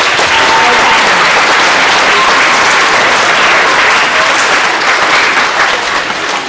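A large audience applauding steadily, the clapping dying away near the end.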